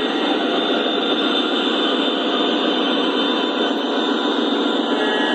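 Lionel Legacy O-scale diesel locomotives rolling past: the steady running sound from their onboard diesel engine sound systems mixed with wheel noise on the three-rail track, with nothing below a fairly high floor of small speakers.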